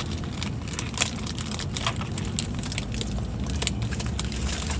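Steady low road rumble inside a moving car's cabin, with frequent short crinkles and clicks from fast-food packaging being handled.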